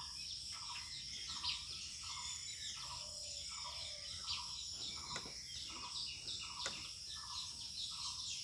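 Steady high-pitched insect drone, with a short chirping call repeating about twice a second.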